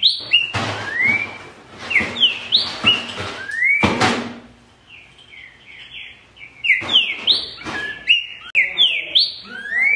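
Green-winged saltator (trinca-ferro) singing loud whistled phrases of short rising notes and upslurred whistles, in two bouts with a short pause near the middle.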